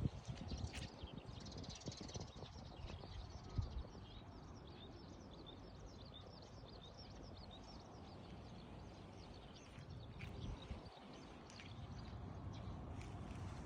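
Small birds chirping in many short, repeated calls over a low steady rumble, with a brief low thump about three and a half seconds in.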